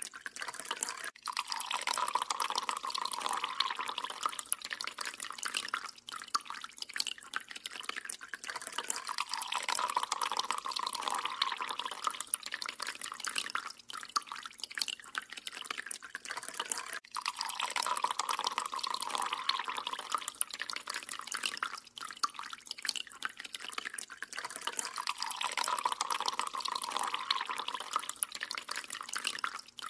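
Water dripping and trickling into a stainless steel kitchen sink, with many small drip ticks. The splashing swells and fades about every eight seconds.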